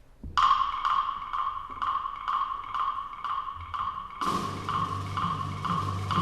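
Orchestral music from a Russian folk orchestra. A high percussion instrument strikes one pitched note steadily, about three times a second. About four seconds in, low sustained instruments come in underneath and the music grows louder.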